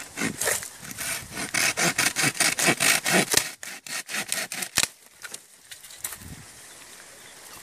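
Fiskars Xtract retractable hand saw cutting through a tree branch with quick, even back-and-forth strokes, the teeth rasping through the wood. The sawing stops about three and a half seconds in, followed by a sharp knock and light handling noise.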